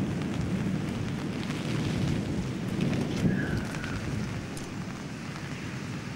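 Torrential rain pouring down, with a low rumble of thunder that swells over the first three seconds and then fades away.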